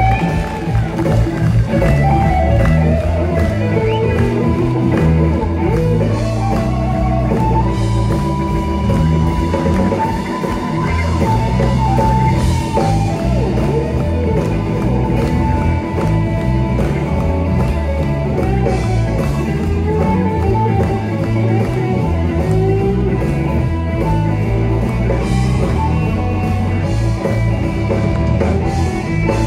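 Blues-rock band playing an instrumental over a PA, with a drum kit, a pulsing bass line and guitar.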